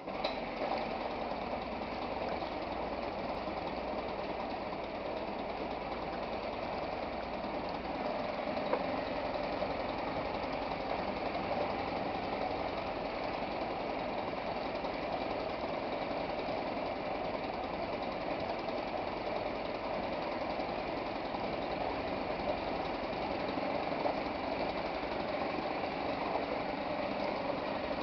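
2 hp Suzuki single-cylinder two-stroke outboard motor catching and then running steadily, with its lower unit in a test bucket of water; it runs a little louder from about eight seconds in.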